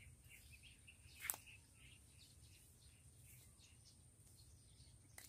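Faint bird chirping, many short high chirps, over a steady high-pitched whine and a low rumble, with one sharp click about a second in.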